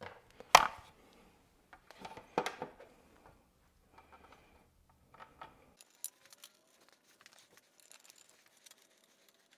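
A plastic motorcycle windscreen on a Yamaha Ténéré 700 being set back in place and its screws started with a T-handle hex key: a sharp knock about half a second in, a clatter around two seconds in, then a few light clicks.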